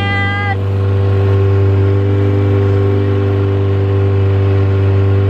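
A 40 hp outboard motor runs steadily at cruising speed, driving a small aluminium boat, with an even, unchanging engine note.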